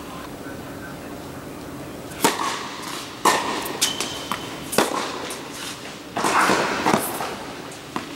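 Tennis rally: sharp pops of the ball striking racket strings and bouncing on the hard court, about seven in a row starting about two seconds in, each with a short echo in the hall.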